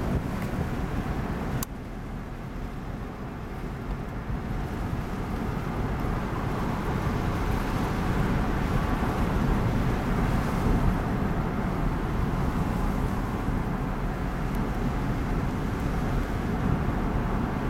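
Steady rumble of road and wind noise inside a moving car on a descent. It drops suddenly with a click about one and a half seconds in, then slowly builds again.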